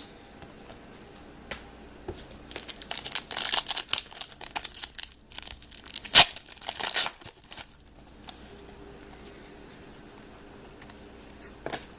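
A trading-card pack wrapper being torn open and crinkled: a run of tearing and rustling from about two and a half seconds in until nearly eight seconds, with one sharp rip about six seconds in.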